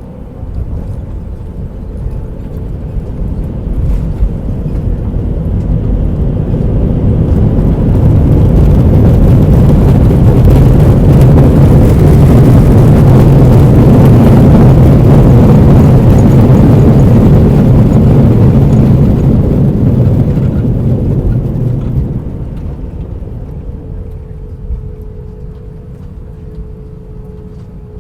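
Jet airliner's engines heard from inside the cabin during the landing roll: a loud, deep roar that builds after a thump about four seconds in, holds at its loudest for some ten seconds and dies away near the end, as with reverse thrust after touchdown.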